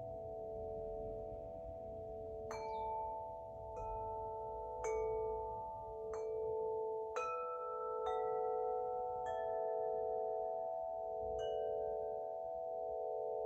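A winter wind chime ringing, its tuned metal rods struck eight times at uneven intervals. Each strike adds a new ringing note over a lingering cluster of tones, and the lowest tone slowly pulses.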